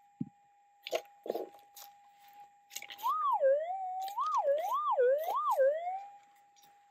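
Minelab GPX 6000 gold detector's steady threshold hum, which about three seconds in swings up and down in pitch four times as the coil passes over a target in the dug clay, then settles back to the steady hum. A few short knocks and scrapes come in the first second and a half.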